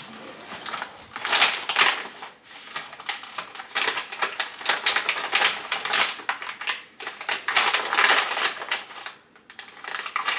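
Crinkly plastic food packet rustling and crackling in irregular bursts as it is handled and cut open with scissors.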